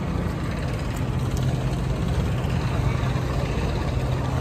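A motor vehicle's engine running steadily as a low hum over street noise, its pitch dropping a little near the end.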